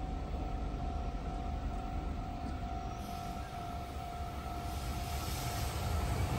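Japanese level-crossing warning bell ringing in a steady, evenly repeating ding, about two a second. From about two-thirds of the way through, the rumble of an approaching freight train hauled by an EF210 electric locomotive rises and grows louder toward the end.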